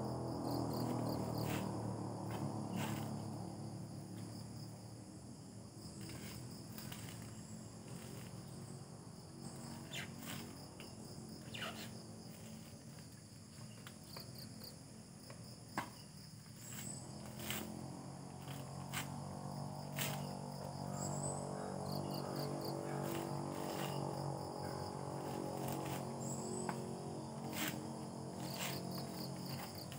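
Steady high-pitched chorus of crickets and other insects. Underneath runs a low hum that fades after the first few seconds and returns in the second half, and there are scattered sharp clicks, the loudest about halfway through.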